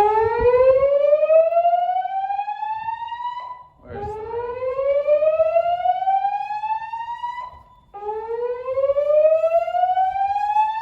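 Gentex fire alarm speaker strobes, driven by a Notifier NFS2-640's DVC voice evacuation system, sounding a whoop evacuation tone. It is a loud rising sweep lasting a little under four seconds, repeated after a short break, with two full sweeps and a third still rising at the end.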